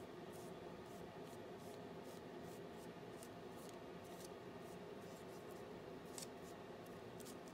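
Paintbrush dabbing and dragging short strokes of thick paint across a sheet: faint, brief scratchy brushing sounds, about one or two a second, over a low steady room hum.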